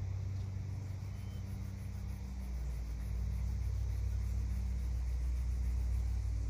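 A steady low mechanical hum, like an engine or motor running.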